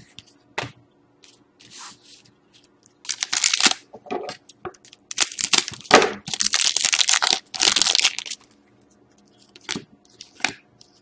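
Hockey trading cards and their packaging being handled, with two long stretches of rustling and crinkling, the first about three seconds in and the second from about five to eight seconds, and scattered sharp clicks between them.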